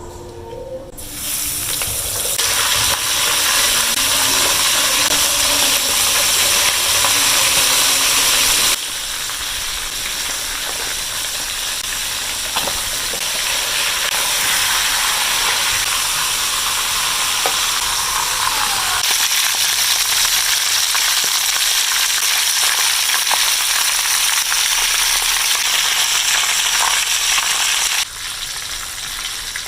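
Food frying in hot oil in a pan, a steady sizzle. It drops abruptly in level about nine seconds in and again near the end.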